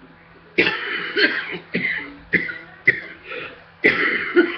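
A person coughing hard in a fit brought on by running on a treadmill. About half a second in, the coughs start and come in a quick run of about seven harsh coughs, with a brief catch of breath before the last two.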